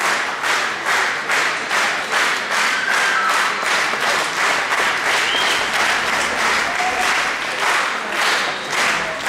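Audience applauding, the clapping falling into a steady rhythm of about three claps a second near the start and again near the end.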